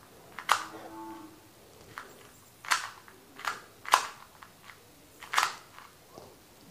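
MoYu MeiLong 2x2 speed cube being turned by hand while its corner cutting is tested: about five sharp plastic clicks as the layers are turned and snap into place.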